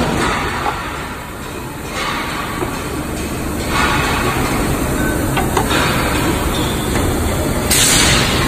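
Steady rumble of an impact-bonding press for pot bottoms running between strikes, as a pot and its bottom disc are set on the die; a couple of light metallic clicks about halfway and a short hiss near the end.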